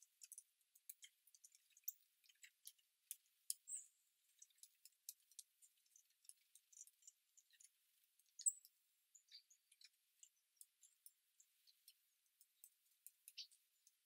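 Small birds at a feeder: a faint, irregular run of small sharp clicks and taps of beaks pecking at seed, with a few brief high chirps, about three of them.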